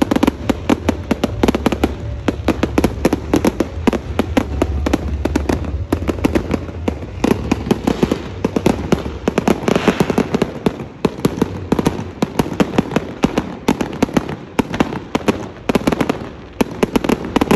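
Aerial fireworks going off in a dense barrage: rapid sharp bangs and crackling pops, several a second, with a low rumble underneath that eases off about halfway through.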